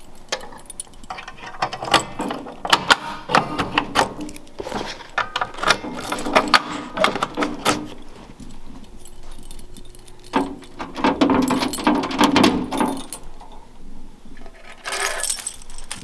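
A ring of keys jangling as fire alarm pull stations are reset one after another with their keys, with many sharp clicks and snaps from their locks and covers.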